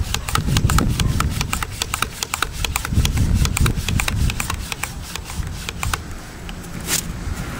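Homemade PVC air gun being pumped up by hand: a fast, even run of clicking pump strokes, about four to five a second, that stops about six seconds in. About a second later comes one sharp burst as the ball valve is opened and the compressed air fires the foam dart.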